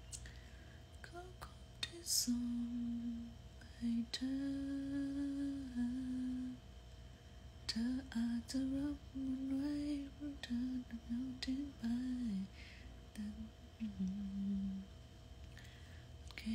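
A woman humming a slow tune, holding each note for up to a second or so, with short pauses between phrases.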